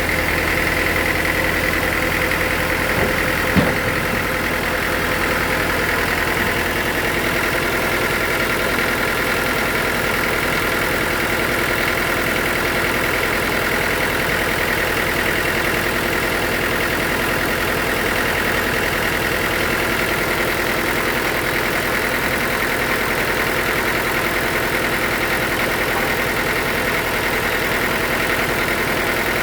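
Sawmill machinery running with a steady engine-like drone, with one short sharp knock about three and a half seconds in.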